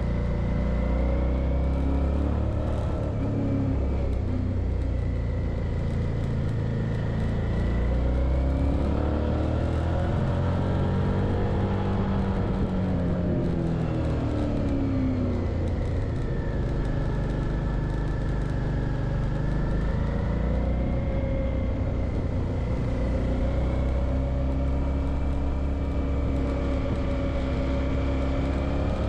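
Suzuki V-Strom 650's V-twin engine pulling through a series of bends, its pitch rising and falling again and again as the rider opens and closes the throttle.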